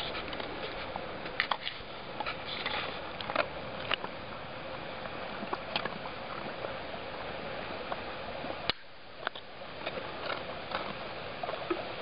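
Siberian husky chewing a hard dog biscuit, with irregular sharp crunches and clicks from its teeth over a steady background hiss.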